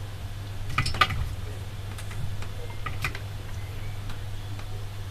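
A few light clicks and taps of small tools touching the circuit board during hand soldering, over a steady low hum.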